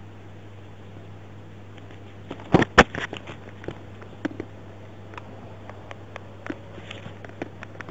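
Scattered knocks and clicks over a steady low hum: two loud knocks close together about two and a half seconds in, then lighter irregular clicks.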